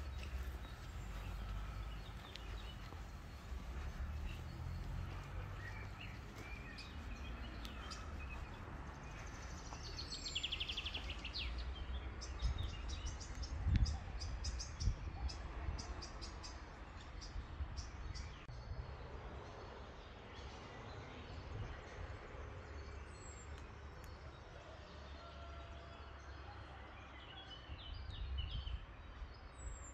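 Outdoor ambience of birds chirping and trilling over a steady low rumble. A dull thump comes about fourteen seconds in.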